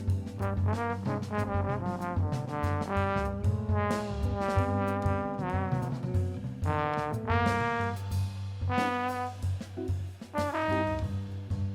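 Music: a wind instrument plays a melody of separate notes, some bent or slurred, over a backing track with a steady bass line.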